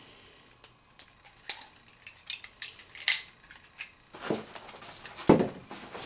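A small metal Altoids tin being handled and put away: a few light metallic clicks and taps, the sharpest about five seconds in.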